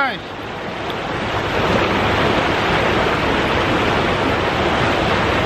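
River water rushing over rocks in shallow rapids, a steady loud rush that dips briefly just after the start and then holds even.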